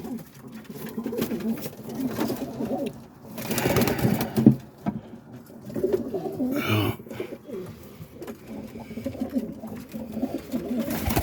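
Roller pigeons cooing in a loft, several low wavering coos overlapping, with a couple of brief louder rustling bursts about a third and two-thirds of the way through.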